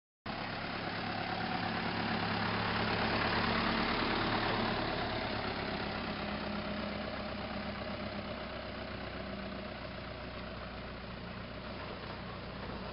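Mitsubishi flatbed truck's engine running steadily, a little louder in the first few seconds and then easing off slightly.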